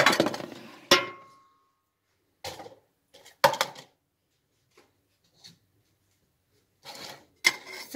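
Kitchenware being moved and set down on a wooden counter: the roasting pan slid aside and a plastic citrus juicer put down. A scraping clatter and a sharp knock with a short ring about a second in, then a few lighter knocks a little later.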